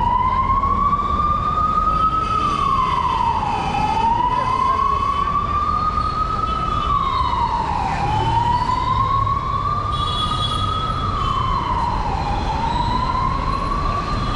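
Emergency vehicle siren wailing, its pitch climbing slowly and then dropping more quickly, in a cycle that repeats about every four seconds, over the low rumble of street traffic.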